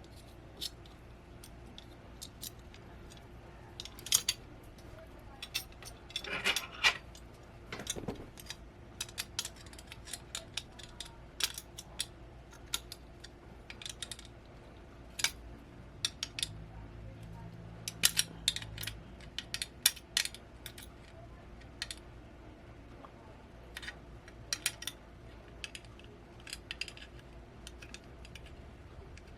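Light metallic clicks and clinks at an uneven pace as a nut and bolt are fitted to a metal monitor-mount bracket and tightened by hand.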